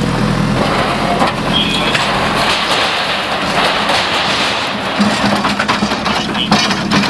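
Backhoe loader's diesel engine running under load as its front bucket breaks into a stone wall, with sharp knocks and crunching of masonry. The engine note drops back and rises again about two-thirds of the way through as the machine pulls away.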